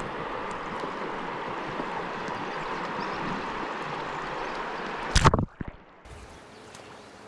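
Steady rushing of creek water, which about five seconds in gives way to a loud, brief thump and then a much quieter background.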